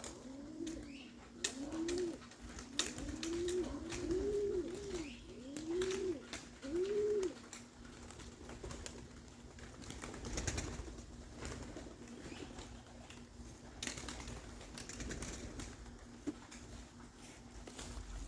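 Young racing pigeons cooing: a run of short coos, each rising and falling, that stops about seven seconds in, with a few sharp clicks scattered through.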